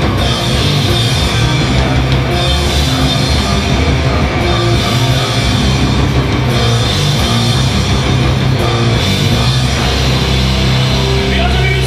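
Live heavy rock band playing loud through a PA: distorted electric guitars, bass and drum kit.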